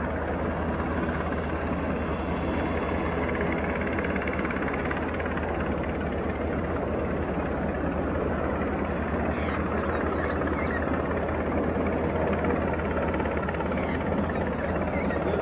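Black Hawk helicopter hovering overhead with a chairlift tower head slung beneath it on a long line: a steady rotor and turbine sound with a deep, even low beat. A few brief high chirps sound around the middle and near the end.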